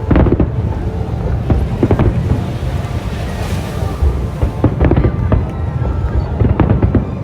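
Aerial fireworks bursting in a rapid run of bangs and crackles over a low rumble, with the thickest clusters at the start and again in the second half.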